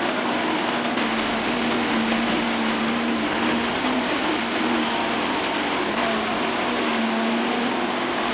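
Heavy machine's engine running steadily under a dense noise, with a low hum that wavers slightly in pitch.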